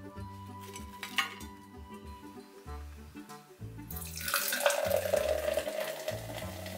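Background music, then about four seconds in a fizzy drink starts pouring into a pint glass, a steady splashing and foaming hiss that runs on over the music.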